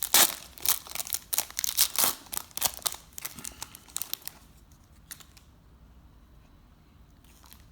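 Foil wrapper of a baseball card pack being torn open and crinkled: dense crackling for about four seconds, then only a few faint rustles.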